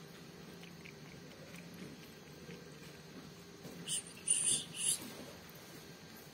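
Cat lapping milk from a plastic cup, faint and rapid. About four seconds in, three short high-pitched chirps sound within a second, the loudest thing heard.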